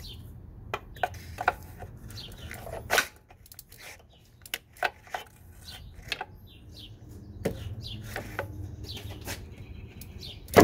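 Small birds chirping off and on, mixed with scattered light clicks and knocks, over a low rumble that fades out for a few seconds in the middle. A single loud, sharp knock comes right at the end.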